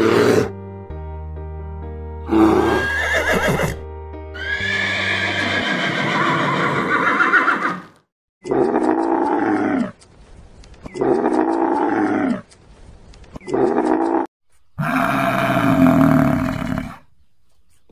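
Several animal calls over background music: a brief bear grunt at the start, then a horse whinnying, then short low calls and a longer, louder low bellow from cattle near the end.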